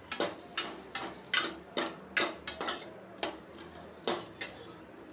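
Steel ladle scraping and clinking against a stainless steel pot while stirring coconut slices roasting in a little oil. Irregular strokes about twice a second, stopping about four seconds in.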